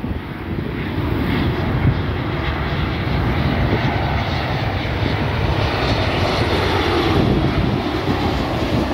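Jet engines of a WestJet Boeing 737 airliner on final approach with its landing gear down, a steady rushing noise that grows louder as the plane comes closer over the first seven seconds or so, then eases slightly.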